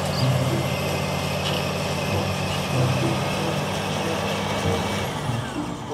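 Caterpillar crawler bulldozer's diesel engine running steadily as the dozer pushes dirt with its blade.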